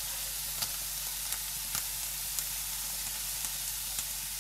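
Stir-fry vegetables and haloumi sizzling steadily in a frying pan on low heat, with small scattered crackles and pops.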